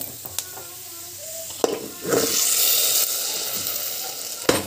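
Hot ghee tempering of cashews and black pepper tipped from a pan onto cooked pongal, sizzling sharply about two seconds in and then dying down. A metal clink comes just before it and two more near the end.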